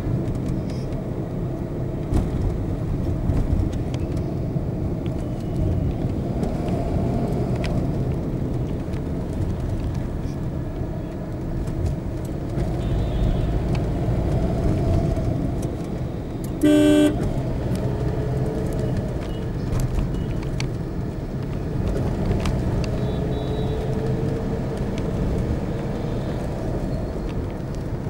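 Busy city road traffic heard from a moving vehicle: a steady rumble of engines and tyres, with a short, loud vehicle horn blast about seventeen seconds in and fainter horns now and then.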